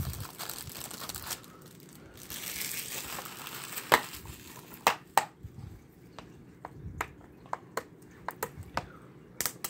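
Plastic shrink-wrap on a DVD case crinkling as fingers tear and peel it. This is followed by a run of sharp, irregular clicks and taps of fingers picking at the wrap and seal label on the hard plastic case.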